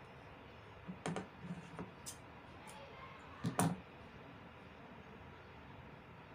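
Light handling clicks and taps at a sewing machine: a few scattered clicks in the first two seconds, then a louder double click about three and a half seconds in.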